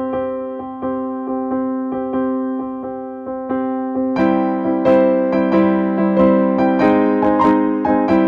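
Background piano music: a slow run of struck notes that grows fuller about four seconds in.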